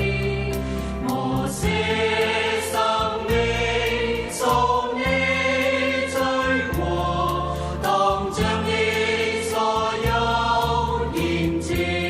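Choir singing a slow Christian hymn with accompaniment, in held chords over a bass line that change every second or two.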